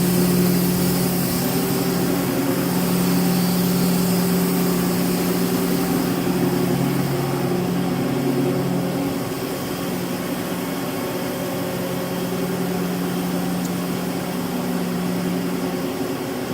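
Mazak Slant Turn 60 CNC lathe standing powered up, giving off a steady machine hum with a few steady low tones and a hiss. About nine seconds in, one of the low tones stops and the hum gets a little quieter.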